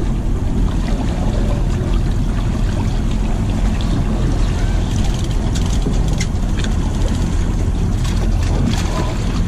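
Steady low rumble of the charter boat's idling engine and wind on the microphone. About five to seven seconds in, and again near the end, come sharp splashes and knocks as a hooked yellowfin tuna thrashes at the side of the boat.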